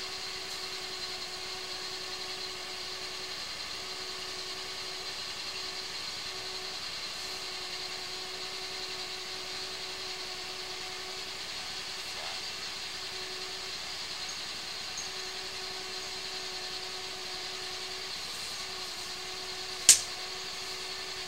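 Engine of a sewer hydro-jetter running steadily, a constant drone with a low hum, and a single sharp click near the end.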